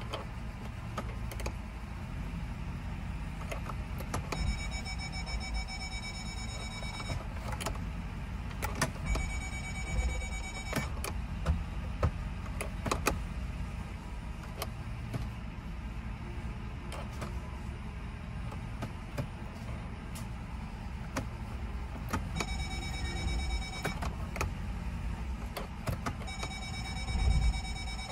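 2005 Ford Explorer engine idling steadily while the automatic transmission is run through its gears, with the reverse parking sensors giving rapid beeping in four short stretches whenever reverse is selected. Short clicks are heard throughout.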